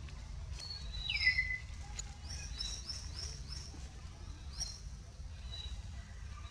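Bird calls: a high whistle falling in pitch about a second in, then a quick run of about five short rising chirps and one more a second later, over a steady low rumble.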